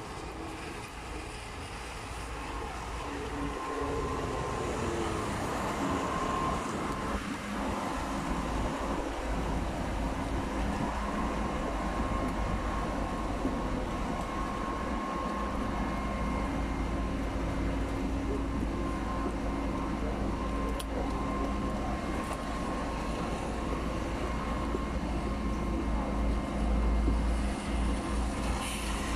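A city bus pulls up and stands running at the stop: a steady engine hum with a faint high tone held over it.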